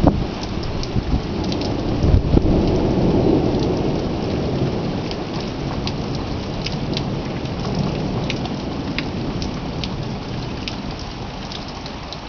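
Thunder rumbling after a nearby lightning flash, swelling about two seconds in and then slowly fading away. Scattered sharp ticks of rain run over it.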